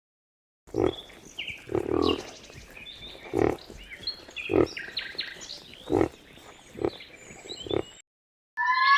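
An animal making short low grunts, one about every second, with small birds chirping in the background.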